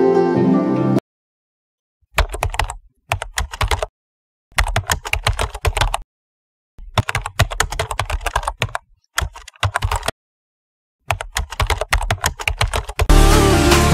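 Keyboard typing sound effect: six bursts of rapid key clicks separated by dead silence. Music stops about a second in and comes back near the end.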